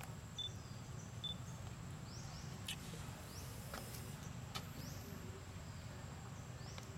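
Quiet outdoor ambience: a thin, steady high insect drone with short rising chirps from birds or insects repeating every second or so, two brief pips near the start, and a few faint clicks over a low rumble.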